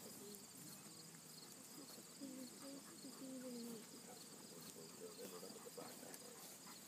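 Faint, steady high-pitched chirring of insects, with faint distant voices murmuring underneath.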